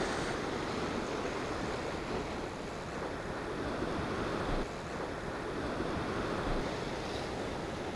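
Sea waves breaking and washing over rocks, with steady wind buffeting the microphone.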